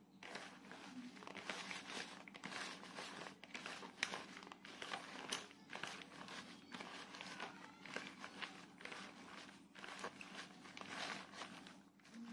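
Shredded young papaya being squeezed and kneaded by hand: a faint, irregular crunching and crinkling of the strands. The kneading softens the papaya.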